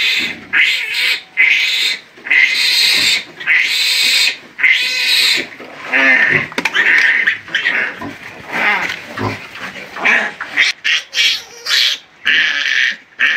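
Newborn Duroc × Landrace crossbred piglet squealing loudly and repeatedly in distress while it is restrained and handled for processing. The squeals come one after another with short breaks.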